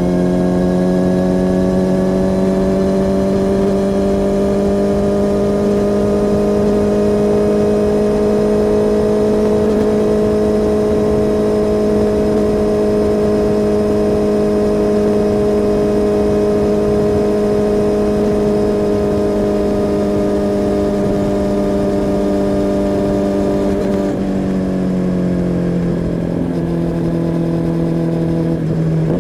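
Kawasaki ZX-10R inline-four engine and exhaust pulling steadily under light throttle, the pitch creeping up over the first several seconds and then holding. Near the end the revs fall away as the throttle is rolled off, then pick up again at the very end.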